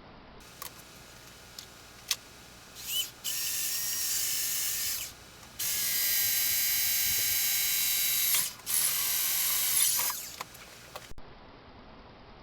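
Electric drill boring a hole through a flattened piece of metal tubing for a rivet, running in three steady bursts of about two, three and one and a half seconds with short pauses between, after a few handling clicks.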